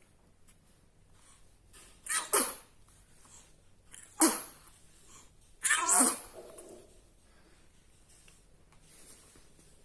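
A small baby sneezing three times in quick succession, about two, four and six seconds in; the first is a quick double sneeze.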